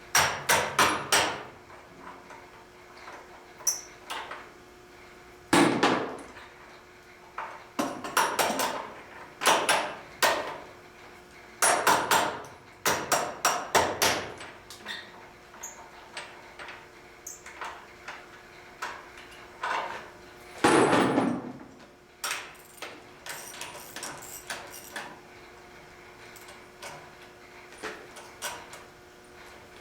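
Metal clanking and knocking as the clamps are worked off a steam boiler's door, in bursts of several quick strikes every few seconds that thin out in the second half, over a faint steady hum.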